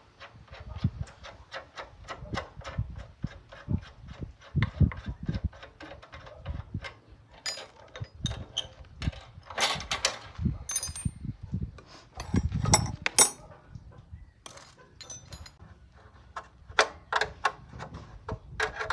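Irregular clicks, taps and knocks of hand tools on metal parts being worked, with louder clattering stretches about ten and thirteen seconds in.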